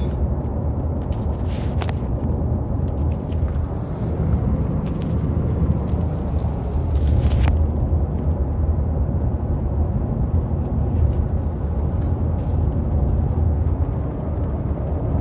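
Steady low road rumble inside a moving car's cabin, with a few faint light clicks.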